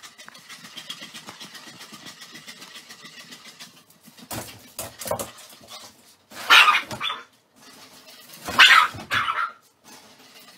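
Dog barking: several loud barks in the second half, after a few seconds of rapid, even ticking.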